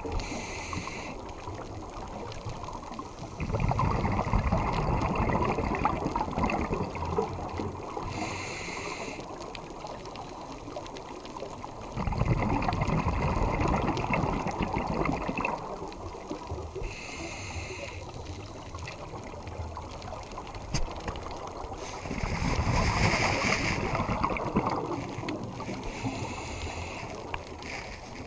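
Scuba regulator breathing underwater: a short hissing inhale about once every nine seconds, followed a few seconds later by several seconds of bubbling exhaust.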